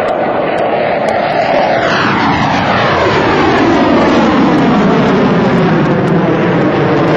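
F-15 Eagle's twin Pratt & Whitney F100 turbofans running at high power in a fast, close pass. The pitch falls sharply about two seconds in as the jet goes by, then a steady loud rumble follows as it climbs away.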